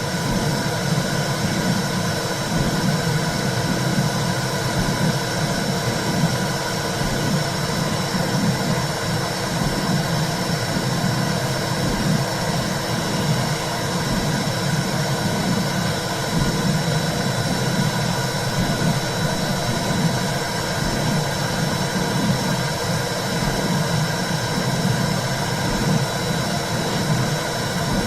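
Womb sound: a steady low whooshing rumble that swells and ebbs in an uneven rhythm, with a faint steady high tone above it.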